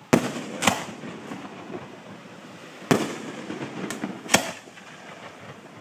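Aerial fireworks bursting close by: five sharp bangs, two in the first second and three more between about three and four and a half seconds in, each trailing off in a rumbling echo.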